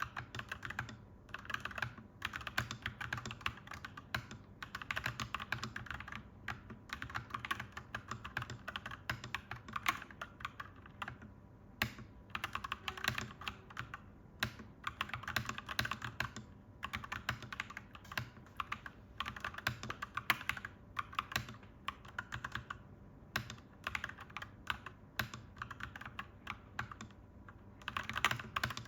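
Clacky mechanical keyboard being typed on steadily, in runs of rapid key clicks broken by short pauses.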